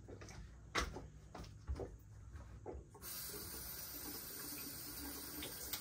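A few light clicks and knocks, then a steady hiss that starts suddenly about three seconds in and lasts about three seconds.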